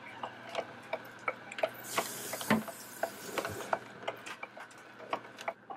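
Vertical cold-press juicer running with a faint steady motor hum, with irregular clicks and crunches as produce is fed in and pressed. A hiss lasts about two seconds in the middle.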